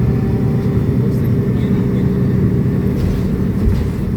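Mercedes-Benz O500U BT5 city bus with a Voith automatic gearbox, its engine and drivetrain giving a steady low rumble as heard on board.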